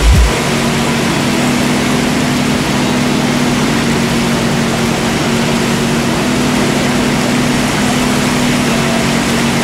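Tohatsu M 9.8 two-stroke outboard motor running steadily under way. Its hum wavers slightly in pitch over a constant hiss of wind and water.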